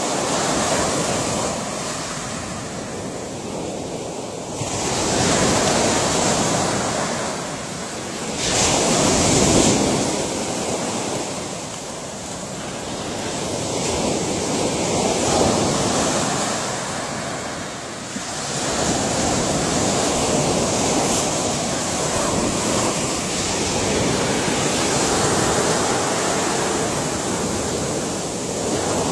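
Ocean waves breaking and washing on a shore, the surf swelling and ebbing every few seconds with a louder surge near a third of the way in.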